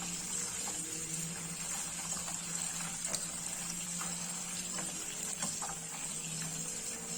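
Tap water running steadily over plastic PC fan blades as they are washed, with a faint low hum beneath it.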